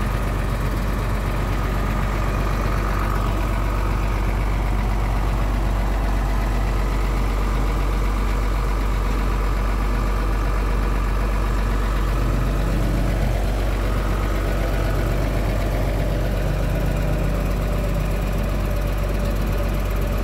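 Mercedes-Benz OH1521 bus's rear-mounted turbo-intercooled diesel engine idling steadily, heard up close at its open engine compartment.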